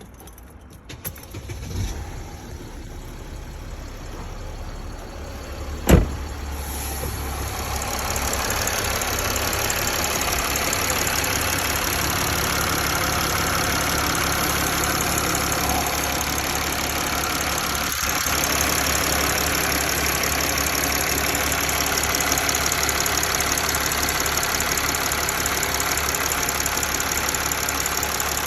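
Mercedes ML 280 CDI's OM642 V6 diesel engine running steadily at idle with a ticking noise. One sharp click comes about six seconds in, and the engine sound grows louder over the first eight seconds.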